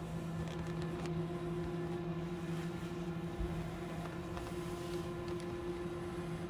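A steady low drone holding one pitch with its overtones, with a few faint knocks over it.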